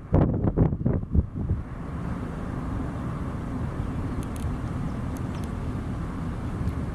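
Gusts of wind buffeting the microphone for about the first second and a half, then a steady low rumble of outdoor noise.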